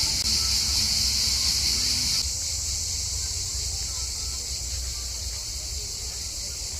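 A steady, high-pitched chirping chorus of insects, unbroken and even, dropping slightly in level about two seconds in.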